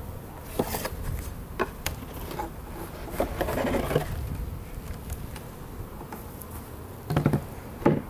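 Honeybees buzzing steadily around a wooden beehive, with several sharp wooden knocks and a scrape as the hive's outer cover is lifted off and set against the side. The loudest knocks come near the end.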